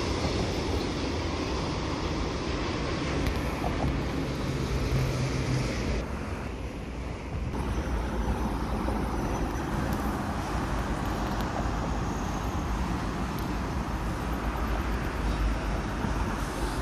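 Freight wagons rolling past on the rails for about the first six seconds, giving way to the steady noise of motorway traffic. Wind rumbles on the microphone throughout.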